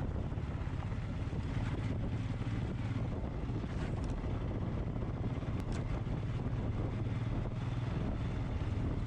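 Royal Enfield Himalayan's single-cylinder engine running steadily while riding, with wind rushing over the camera microphone.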